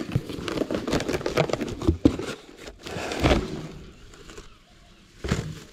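Packaging and small hardware being handled: dense rustling and clicking for about three seconds, then quieter, with one more short rustle near the end.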